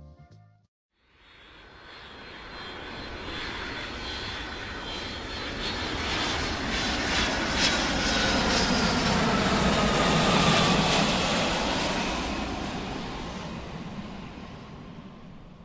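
Airplane flying past: its engine noise swells for several seconds, peaks, then fades away, with a whine sliding down in pitch as it passes.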